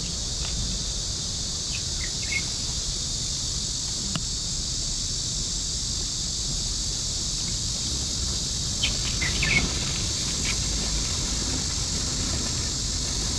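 Steady high-pitched drone of insects, with a few brief faint chirps and clicks.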